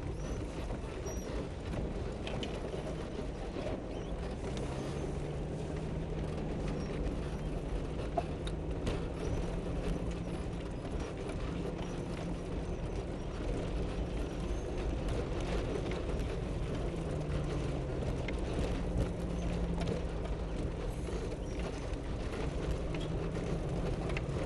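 Four-wheel-drive vehicle crawling along a rough dirt trail, heard from inside the cab: engine running steadily at low revs with its pitch shifting slightly, and scattered clicks and knocks as the vehicle jolts over the ruts.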